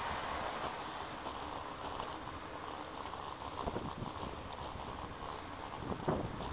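Steady rush of wind and tyre noise from a bicycle riding along a paved road, with a few light knocks and rattles scattered through it.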